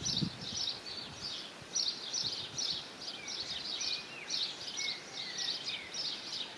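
Small birds chirping: a steady run of short high chirps, about two to three a second, with a few thin gliding whistled notes in the middle.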